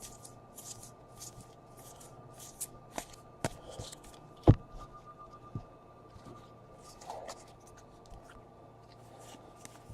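Baseball trading cards sliding and being flipped one over another in the hands: a series of short, quick swishes, several a second. In the middle come a few knocks on the table, the loudest a sharp knock about four and a half seconds in.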